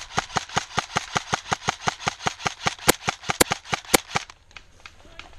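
Airsoft rifle firing a long, steady string of shots, about seven a second, stopping about four seconds in; a few shots near the middle are louder.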